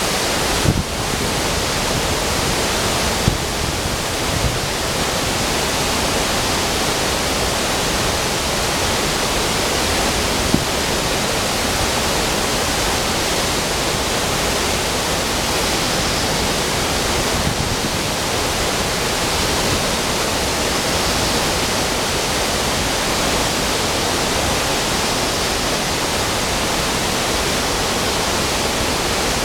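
Steady, even rush of a waterfall and the river running over boulders below it.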